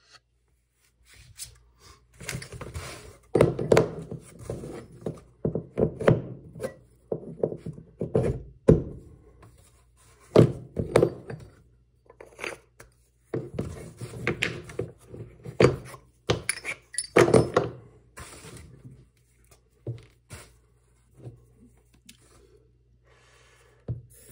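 Handling noises as short wooden dowels and lengths of threaded steel rod are picked up, fitted together and set down on cardboard. Irregular thunks, knocks and scrapes come with a faint steady low hum underneath.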